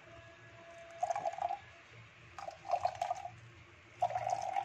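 Wet ground coconut squelching as it is pressed with a spoon against a plastic strainer, in three short spells about a second and a half apart, with coconut milk dripping through into the bowl below.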